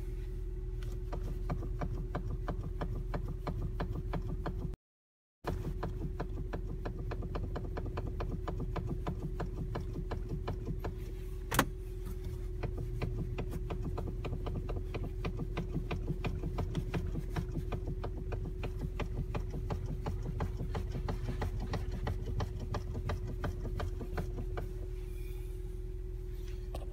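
Car steering knocking and crackling as the steering wheel is turned: a dense run of rapid clicks over a steady hum and low rumble, with one sharper, louder knock about halfway through. This is a steering fault that has appeared by 45,000 km of mileage.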